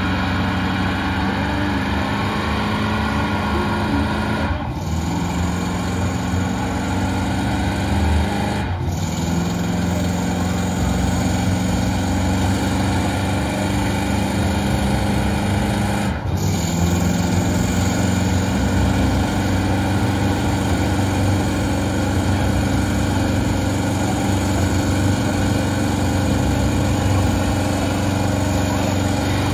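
Pickup truck engine held at high revs through a long stationary burnout, its rear tyres spinning and smoking on the pavement. The engine note holds steady, dipping briefly three times (about 4, 9 and 16 seconds in) before coming straight back up.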